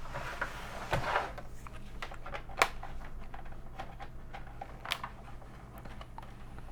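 A plastic card scraping along the seam of a Commodore 128's plastic case and the case's latches snapping free as it is pried open: a scrape, then three sharp clicks spaced a second or two apart.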